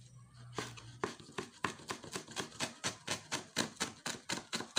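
Kitchen knife chopping mayana (coleus) leaves finely on a cutting board: quick, even strokes, about five a second, starting about a second in.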